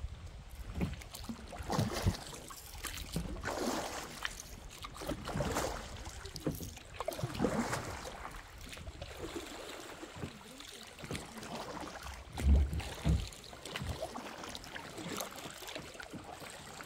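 Kayak paddle strokes dipping and splashing in river water, coming irregularly every second or two. One low thump stands out about three-quarters of the way through.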